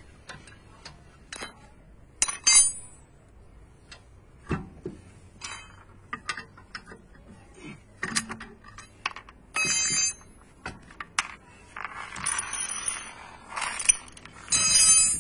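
Metal wheel wrench and steel wheel bolts clinking as the bolts of a BMW E39's rear wheel are loosened and taken out: scattered light clicks, with a few loud clanks that ring on, about two seconds in, around ten seconds in and near the end. A rough rubbing sound comes shortly before the last clank.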